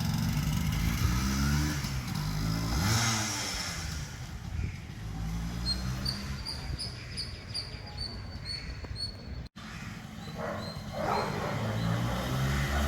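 Enfield Fury motorcycle engine running, revved up and back down about two seconds in, then settling to a steadier low run. The sound drops out for a moment near the ten-second mark.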